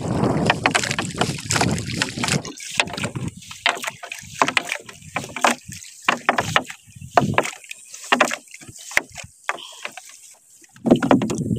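Water splashing and knocking around a small paddled boat, with irregular short splashes and knocks. A rush of wind noise fills the first couple of seconds.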